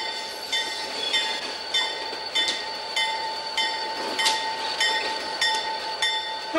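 Diesel locomotive bell ringing, about one and a half strokes a second, over a steady high squeal of train wheels on curved track as the GP40 approaches.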